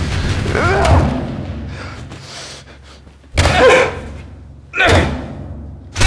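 A man's strained cry, then three heavy blows about a second and a half apart; the last is followed by a deep low boom.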